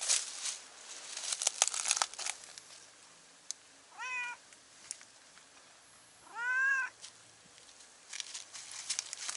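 Tabby cat meowing twice: a short call about four seconds in, then a longer call that rises and falls. Crackly rustling of dry leaves and twigs comes before the meows and again near the end.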